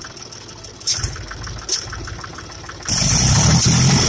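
Mahindra 275 TU tractor's diesel engine running at a low, even idle, then revving up sharply about three seconds in, much louder and with a strong hiss on top of the rumble.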